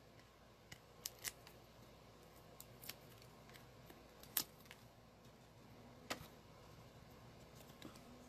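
Quiet room with a scattering of faint, sharp clicks and taps, about eight in all, from paper card pieces and small crafting tools being handled on a desk.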